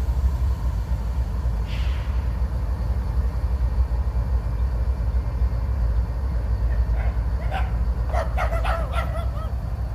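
Steady low rumble of a freight train rolling past, with a short hiss about two seconds in. A dog barks repeatedly over the last three seconds.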